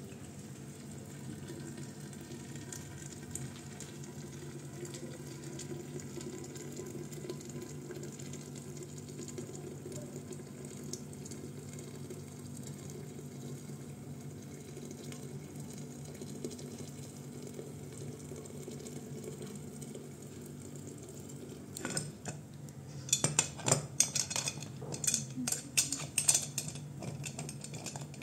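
Steaming water poured in a steady stream from an aluminium kettle into a large aluminium pot. Near the end, a run of sharp metallic clinks and knocks as a metal utensil works at the pot's aluminium lid.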